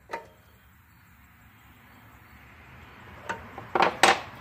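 Metal hand tools clicking against the rocker arms and head of a Predator 212cc engine during a valve lash adjustment: one light click at the start, then a few sharp clinks near the end.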